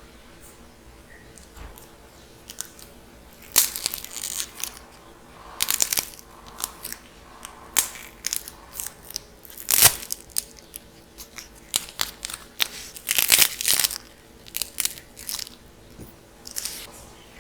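Dried clay cracking and crunching as it is broken up, in irregular clusters of crackles that start a few seconds in and are loudest about ten seconds in.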